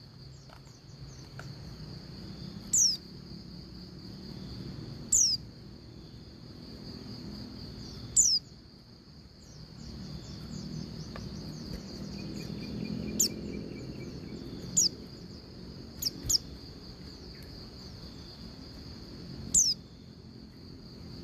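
Female white-eye (pleci) calling: short, high, downward-slurred notes every few seconds, about eight in all, some in quick pairs. This is the female call used to set males singing. A steady high cricket-like trill runs underneath.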